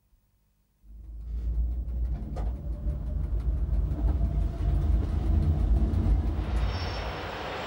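Electric metre-gauge MOB train running along the track: a low rumble that starts abruptly about a second in, with a couple of sharp clicks from the wheels over rail joints. Near the end it turns to a steadier hiss with a faint high whine.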